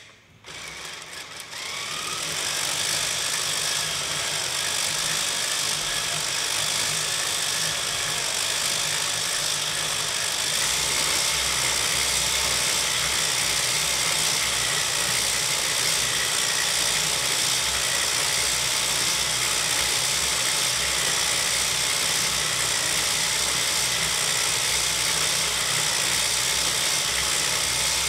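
Motor-driven, 3D-printed DIY circular knitting machine running steadily as it knits, its needles cycling around the cylinder: a continuous mechanical whir. The sound rises over the first couple of seconds, then holds level.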